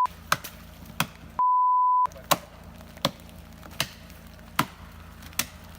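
Single-pitch censor bleep, about two-thirds of a second long, about one and a half seconds in, with all other sound muted while it plays; the tail of another bleep ends right at the start. Sharp clicks come about every three-quarters of a second over a low steady hum.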